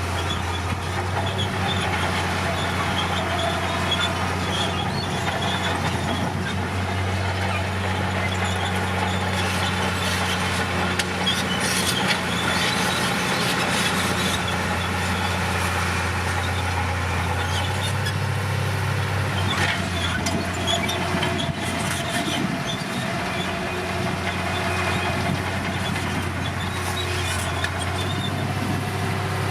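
Komatsu crawler bulldozer's diesel engine running steadily under work, with metallic squeaking and clanking from the steel tracks.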